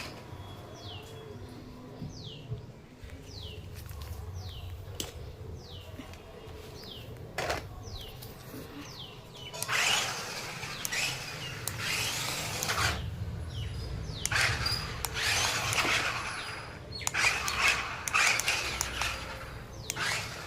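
Toy RC car's small electric motor running, with a low hum throughout. About halfway in it breaks into loud, rough bursts of motor and wheel noise as it is driven.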